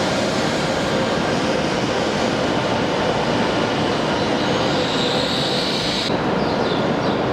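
Shinkansen train running through a station with a steady rushing noise. A high squeal grows in about two-thirds of the way through, and the sound changes abruptly near the end.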